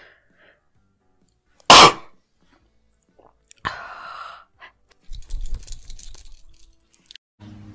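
A young woman sneezes once, loud and sudden, about two seconds in. A shorter vocal sound follows about a second and a half later, then some soft rustling and clicks.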